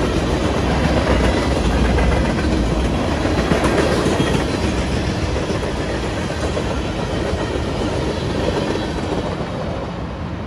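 Cars of a manifest freight train rolling past: a steady rumble and clatter of steel wheels on the rails. It slowly fades near the end as the last cars go by.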